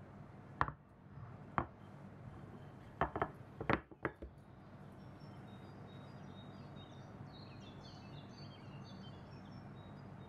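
Glass dish and kitchenware clinking and knocking as they are handled: two single clinks, then two quick clusters in the first four seconds. After that, faint high-pitched chirping over a low steady background.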